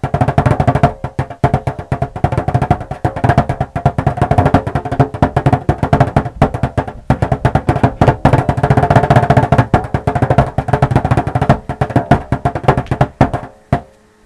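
Bodhrán, the Irish frame drum, played solo in a fast, continuous stream of strokes with a low, ringing tone; the playing stops shortly before the end.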